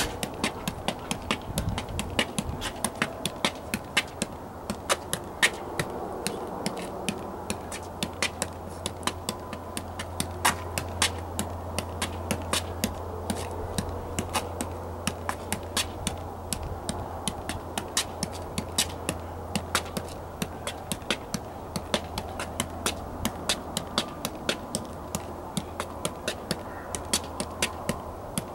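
Soccer ball being juggled with the feet, a steady run of sharp taps, about two or three a second, as foot meets ball over and over.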